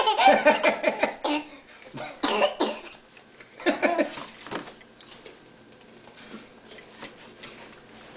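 Baby's belly laugh in short breathy bursts, three rounds over the first four or five seconds, then dying away.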